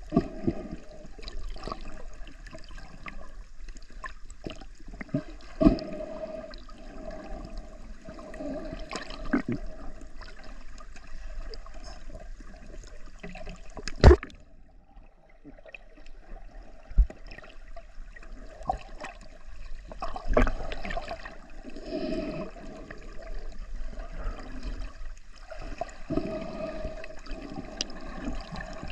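Muffled underwater sloshing and gurgling of seawater, heard through a submerged camera, with scattered knocks on the camera. A sharp, loud knock comes about halfway through, as something presses against the lens.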